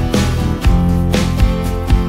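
Background music led by guitar, with steady strummed chords about twice a second.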